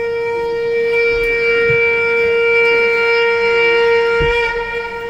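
Conch shell (shankh) blown in one long, steady note that wavers and breaks off about four and a half seconds in.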